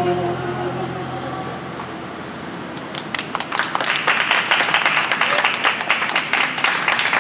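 A woman's final held sung note trails off in the first second. Then an audience starts applauding about three seconds in and keeps clapping steadily.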